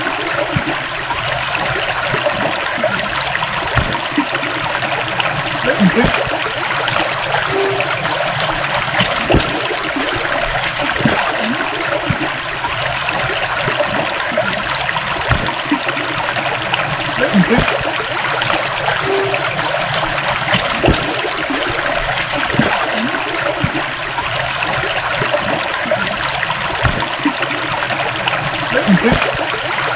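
A stream of water flowing and trickling steadily, with brief low gurgles that recur about every eleven seconds.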